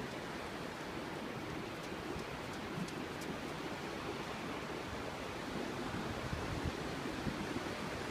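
Steady rush of wind and surf, a constant noise with no distinct events.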